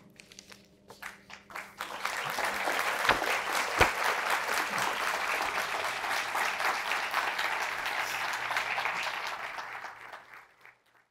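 Audience applauding: a few scattered claps build into full applause about two seconds in, which dies away near the end.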